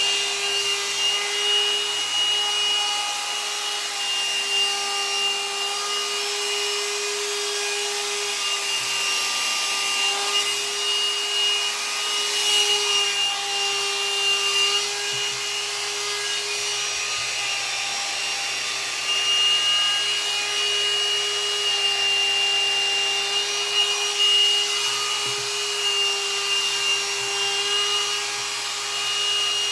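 Hot-air dryer brush running steadily as it is worked through hair: a motor whine over rushing air, the pitch dipping slightly now and then.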